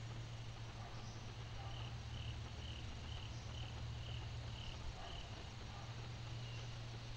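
A cricket chirping in an even rhythm, about eight short chirps at a little over two a second through the middle, over a steady low hum.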